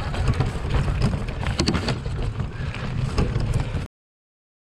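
Wind buffeting the microphone of a bike-mounted camera over the rattle and knocks of a bicycle riding over rough, grassy ground. The sound cuts off abruptly about four seconds in, leaving dead silence.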